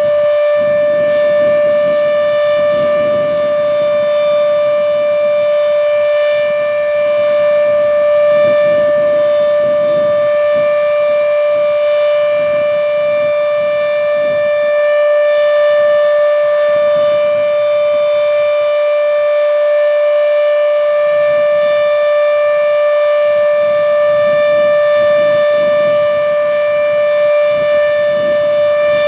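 H.O.R. Siro-Drone outdoor warning siren sounding its Full Alert: one loud tone held steady at full pitch, with no rise or fall.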